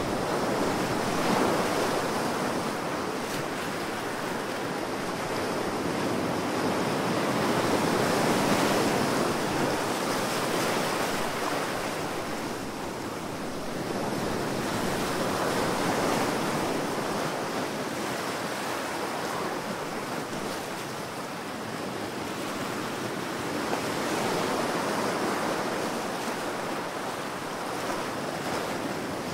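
Ocean surf: waves breaking and washing in as a continuous rush that swells and ebbs about every eight seconds.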